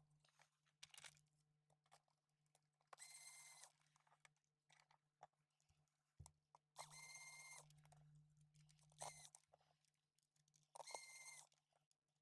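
A small electric motor whirring faintly in three short bursts, each under a second, with light clicks and taps of small parts being handled in between.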